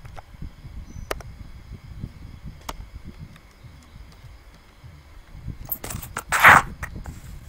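Handling noises at a desk: a few sharp clicks, then a brief, loud rustle about six and a half seconds in, over a low, uneven rumble.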